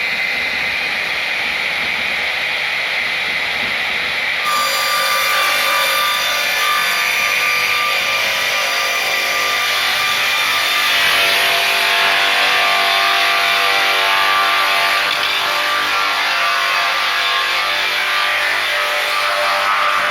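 GP-500 slab-processing machine sawing wood: a steady saw noise that, about four seconds in, suddenly grows a little louder and takes on a ringing, many-toned whine as it cuts.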